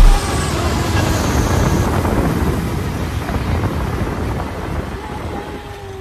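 Ride noise of a three-wheeled motocarro (motorcycle taxi): a steady rush of engine, road and wind noise that slowly fades toward the end.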